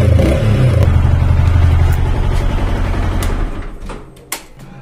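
Yamaha R15M's single-cylinder engine running steadily with a cut-open drink can held over the exhaust tip. About three and a half seconds in, the engine dies away as it is switched off, and a sharp click follows.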